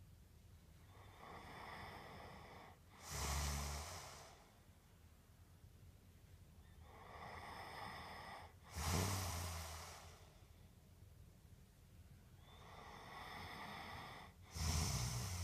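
A sleeping person snoring: three slow breaths about six seconds apart, each a soft airy breath followed by a short, louder snore with a low rumble.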